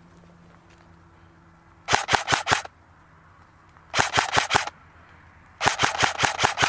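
Airsoft rifle firing three short bursts of rapid shots, each lasting well under a second, with pauses of about a second and a half between them; the last burst is the longest.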